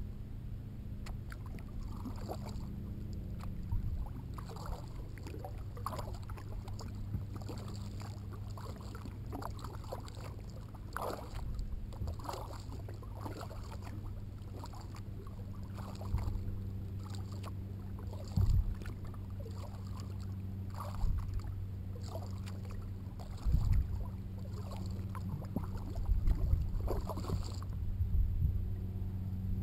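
Kayak paddle strokes: the blade dipping and splashing in the water in a steady rhythm about once a second, with water running along the hull over a steady low hum. A few louder knocks come in the second half.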